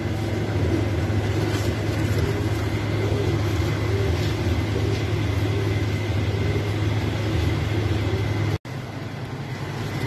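Steady low machine hum, like a motor running. It cuts off abruptly about eight and a half seconds in, leaving a quieter background.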